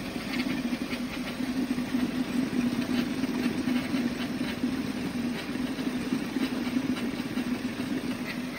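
Car engine idling steadily, heard under the open hood, with faint irregular clicks over the hum.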